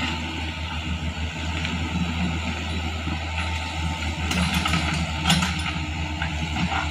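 Hitachi mini excavator's diesel engine running steadily with a low pulsing hum as the machine crawls forward on its tracks through soft earth, with a few sharp knocks about four to five seconds in.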